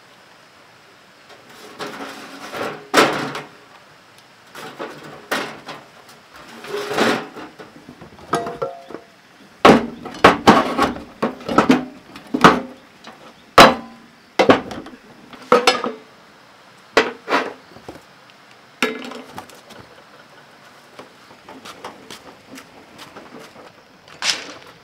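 Metal paint tins, a small air compressor and tools knocking and clanking as they are set into a metal wheelbarrow: irregular sharp knocks, some with a brief metallic ring, busiest in the middle.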